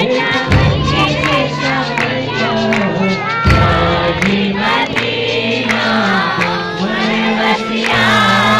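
Live Jain devotional song (bhakti stavan): men's voices singing a melody over a Korg Pa700 keyboard's sustained accompaniment, with a heavy beat landing every few seconds.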